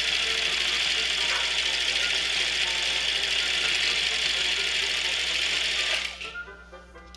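Sewing machine running steadily at speed, stitching the lace onto the sweater's split neck seam, then stopping abruptly about six seconds in. Quiet classical music follows.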